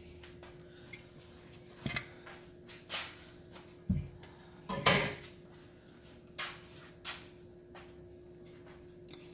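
Scattered clinks and knocks of kitchen utensils and cookware, about half a dozen, the loudest about five seconds in, over a faint steady hum.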